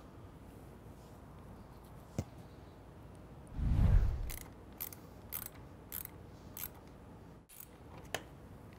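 A low whoosh swells and fades just before four seconds in, then a wrench ratchets in about five evenly spaced clicks, a little under two a second, tightening an M5 lock nut on a soft-top frame bow; a single click comes before and another after.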